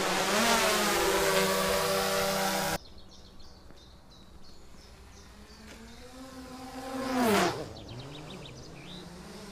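Small drone propellers buzzing: a loud, steady motor hum with several stacked tones cuts off abruptly about three seconds in. A quieter buzz then swells into a quick fly-by about seven seconds in, its pitch rising and then dropping sharply.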